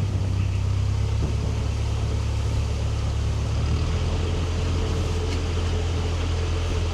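Narrowboat's diesel engine running under way, a steady low rumble whose note shifts about four seconds in.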